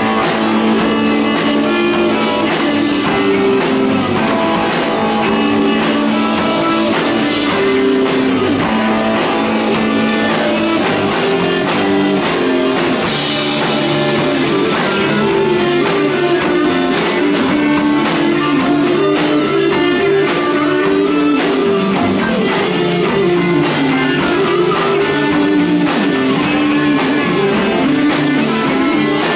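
Live heavy psych rock band playing: electric guitars, bass and drum kit, with a bowed cello in the mix, a dense shifting riff over steady drum hits.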